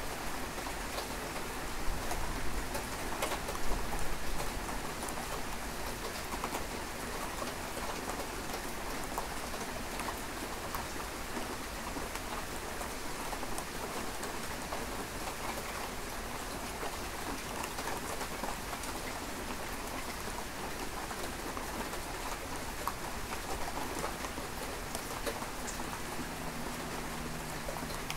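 Steady rain falling, with many individual drops ticking on a surface; a few louder low bumps come about two to four seconds in.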